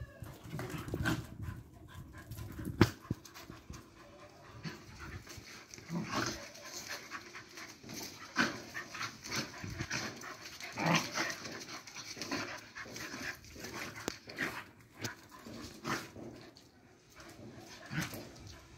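Dogs panting and scuffling as they wrestle and mouth at each other in a rough play-fight. A single sharp click about three seconds in is the loudest sound.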